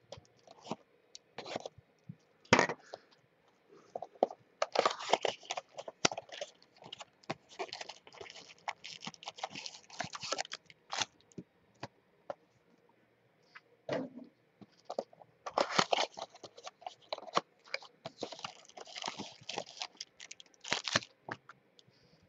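Cellophane shrink-wrap crinkling and tearing as it is stripped off a small cardboard box of trading cards, along with the cardboard box and foil card packs being handled. Two long stretches of crackling and clicking, with a short pause between them.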